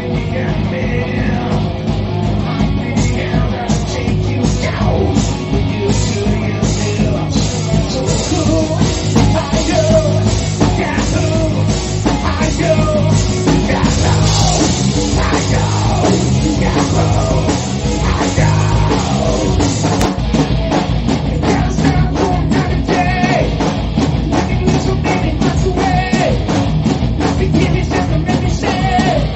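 Rock music from a full band: a drum kit keeping a steady, fast beat under guitars and bass.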